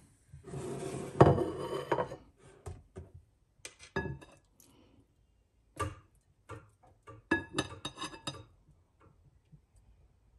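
Metal kitchen tongs scraping and clinking against a glass bowl and a plate while serving dressed vegetables. A rubbing scrape comes first, then clusters of sharp, briefly ringing clinks.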